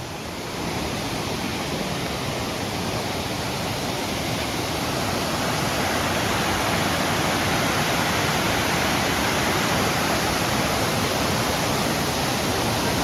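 Waterfall rushing, a steady roar of falling water that grows louder over the first several seconds, then holds.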